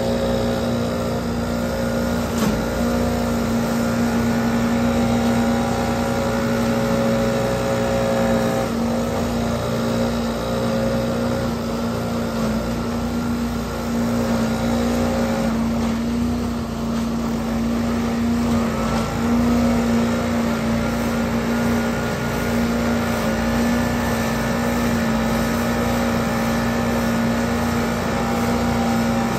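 Leaf vacuum's engine and impeller fan running steadily at one constant pitch while its wide hose sucks up leaves.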